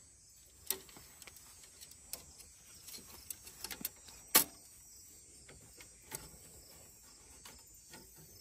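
Scattered light clicks and taps of a hand-bent metal fuel line knocking against the Massey Ferguson 180 tractor's engine and fittings as it is worked into place for a test fit. The sharpest tap comes just over four seconds in.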